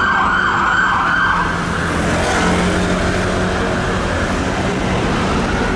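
Siren of a Scania turntable ladder fire engine on a fast yelp, sweeping up and down about twice a second, which cuts off about a second and a half in, leaving the rumble of the heavy diesel engine and traffic. Near the end the siren starts to rise again.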